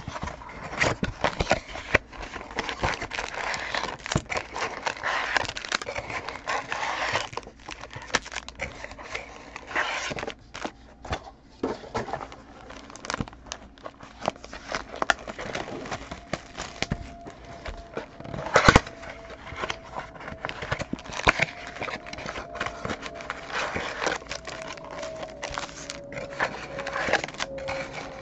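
Crinkling, tearing and scraping of plastic wrap and cardboard as trading-card mini boxes and packs are opened by hand, a dense run of small crackles and clicks with one louder snap a little past halfway.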